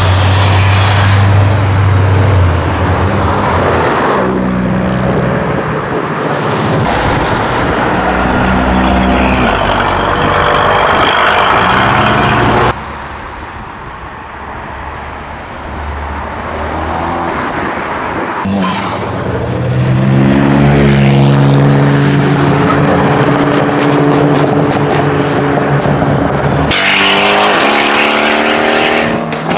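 Loud modified performance cars accelerating hard one after another, engines revving up and dropping between gear changes. First a ProCharger-supercharged Chevrolet Camaro, then a Ford Focus RS with its turbocharged four-cylinder, then a Mercedes C63 AMG's V8 near the end.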